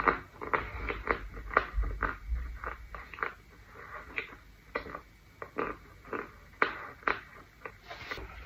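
A mouthful of compressed white powder brick being chewed, with sharp, irregular crunches about two a second.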